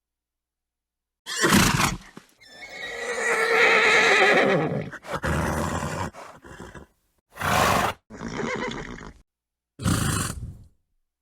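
Horse neighing: one long whinny with a wavering pitch, lasting about two and a half seconds, with a short snort just before it and three more short snorts after it, separated by dead silence.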